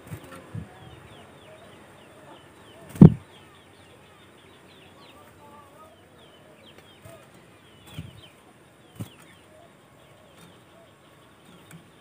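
Caged sooty-headed bulbul fluttering and hopping about its cage: brief wingbeats and a handful of thumps as it lands on the perch and cup, the loudest about three seconds in. Faint high chirps sound underneath.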